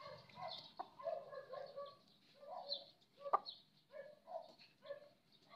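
Chickens clucking softly in a steady series of short calls, about two a second, with one sharp click about three seconds in.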